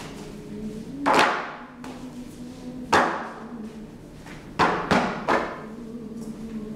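Five loud thuds at uneven intervals, about a second in, three seconds in and three close together near the end, over a person's low, steady humming.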